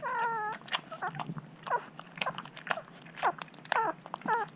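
Twelve-day-old Shar Pei puppies squeaking while nursing: one held whine at the start, then a string of short, high squeaks that each drop in pitch.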